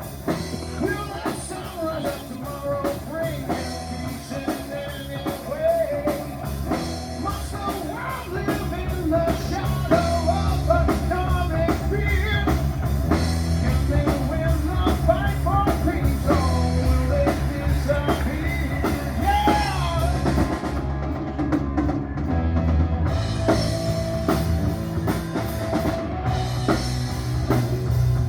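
Rock music with a drum kit keeping a steady beat under a singing voice and a bass line.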